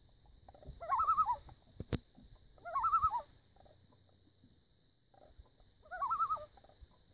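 Common loon giving three short, wavering tremolo calls a couple of seconds apart.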